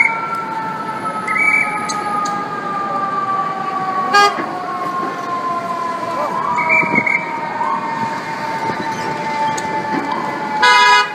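Emergency vehicle siren in city traffic: one steady siren tone slowly falling in pitch, with a few short rising whoops in the second half. It is broken by two horn blasts, a short one about four seconds in and a longer, louder one near the end.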